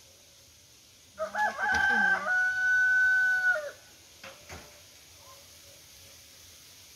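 A rooster crowing once, a single call of about two and a half seconds that starts about a second in and ends in a long held note.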